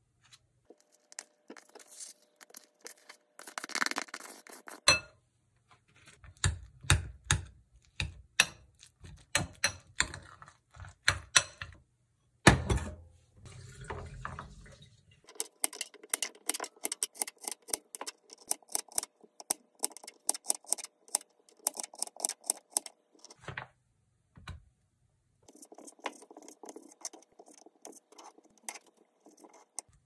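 Kitchen knocks and handling, then a knife tapping on a plastic cutting board as garlic cloves are sliced: a fast run of sharp taps through the middle, with a few quieter cuts near the end.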